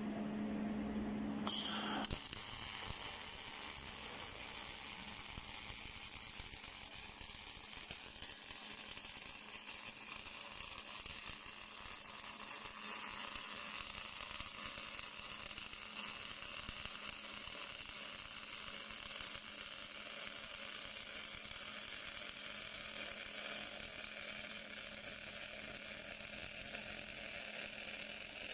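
A welding arc strikes about a second and a half in and then burns steadily, a continuous high hiss with no breaks. Before it there is a steady low hum.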